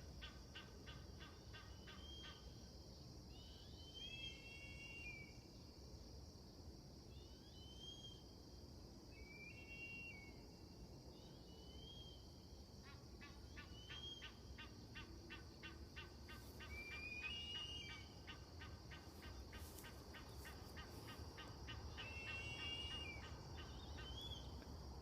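Faint bird calls: short, high calls that bend slightly in pitch, one or a few at a time, every second or two. Behind them a fast, even ticking chorus comes and goes.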